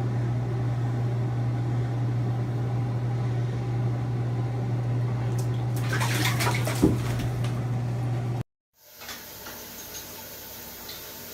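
A steady rushing noise with a low hum in a bathroom, like water running. About six to seven seconds in, a quick cluster of knocks and scrabbles comes as a cat jumps down into the acrylic bathtub, the loudest a single knock. The sound then cuts off abruptly and gives way to quieter room noise with a few faint ticks.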